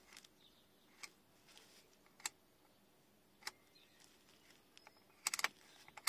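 Heater fan-speed knob on a van's dashboard turned through its settings: sharp clicks about once a second, then a quick cluster of clicks near the end. No blower motor starts, dead even with a new fan resistor, which points to the burnt-out connector.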